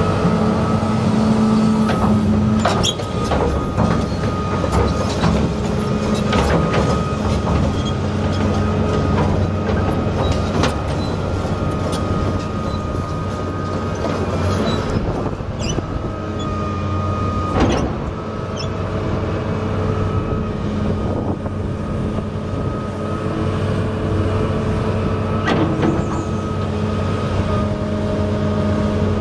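2002 Komatsu PC600LC-6 excavator's six-cylinder turbo diesel engine running steadily under hydraulic load while the boom, stick and bucket are worked, with a steady high whine. Scattered knocks and clanks come through, the sharpest about eighteen seconds in.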